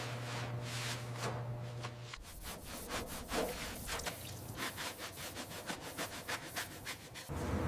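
Quick, repeated rubbing or scrubbing strokes on a surface, of the kind made in brushing or sanding off rust, over a low steady hum that stops about two seconds in.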